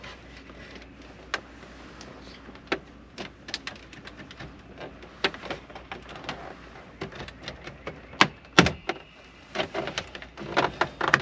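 Plastic dash trim bezel around a Chevy Silverado's radio being pried loose by hand: irregular clicks and creaks of plastic as its retaining clips are worked free, with two louder snaps about eight and a half seconds in.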